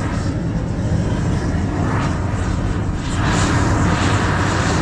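Gas blowtorch fed by hose from a gas cylinder, burning with a steady rushing flame; it gets louder about three seconds in.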